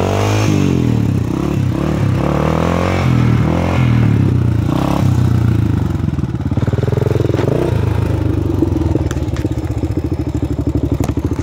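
Honda 400EX quad's single-cylinder four-stroke engine revving up and down under changing throttle, then settling to a steady, even beat at a lower pitch about two-thirds of the way in.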